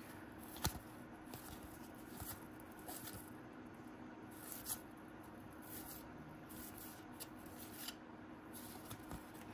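Faint rustling and soft scattered clicks of cardboard trading cards being handled and slid against each other.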